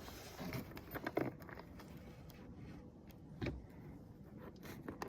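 A few faint clicks and light knocks, like small metal parts or tools being handled, about a second in and again a little past the middle, over quiet background.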